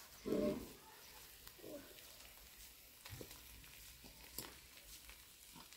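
Faint sizzling of onion-and-spice masala in a pan as fried rohu fish pieces are put in, with a few light clicks. A short voice sound comes just after the start.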